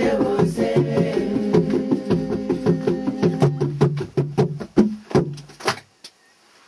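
Congregation singing a hymn to hand drums. The voices stop about three and a half seconds in, and the drums play on in a closing run of strokes that cuts off about six seconds in.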